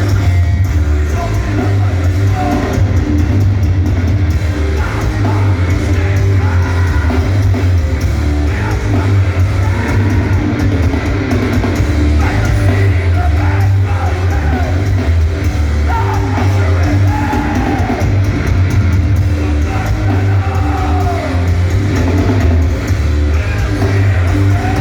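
Loud live hardcore punk band playing, with guitar over heavy, constant bass and yelled vocals.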